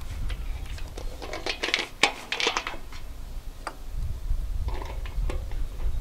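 Small metal mounting hardware clinking and scraping as a bracket and locking nut are fitted by hand to the centre of a squirrel-guard baffle: scattered clicks, busiest around two seconds in and again briefly near five seconds.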